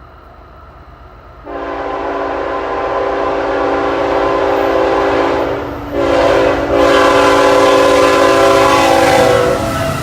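CSX freight locomotive's air horn sounding two long blasts: the first starts about a second and a half in, a brief break comes just before the six-second mark, and the second stops shortly before the end. A low rumble from the train runs underneath.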